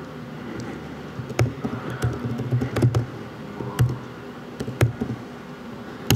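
Laptop keys being typed, a few separate clicks spread out over several seconds, over low room noise.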